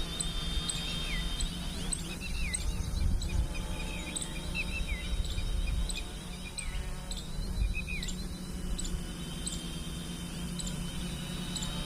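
Birds giving repeated short, falling chirps over a steady high insect-like tone, with a low rumble of wind on the microphone.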